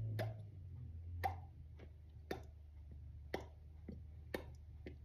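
Mouth pops from lips opening and closing like a goldfish, about one a second, each a short pop with a quick falling tone.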